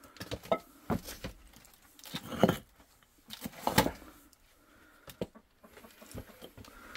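Loose bricks shifted by hand: irregular knocks and scrapes of brick against brick and soil.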